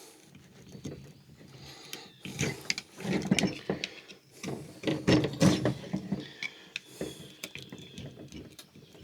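An old tractor EGR valve being pried at, its plastic actuator housing sealed to the metal body with RTV: irregular sharp clicks, creaks and scrapes of tool on plastic, thickest from about two seconds in to around six seconds.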